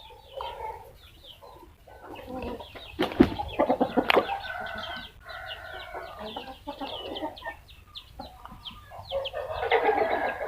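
Domestic chickens clucking and calling in many short, repeated notes, with a few sharp knocks about three to four seconds in.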